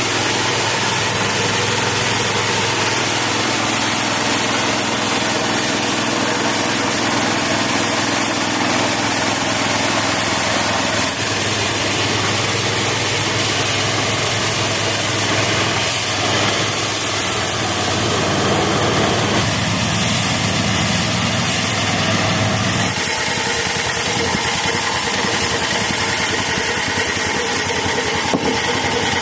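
16 hp engine running a homemade bandsaw sawmill, a steady loud machine drone. Its sound shifts about a third of the way in and again near the end.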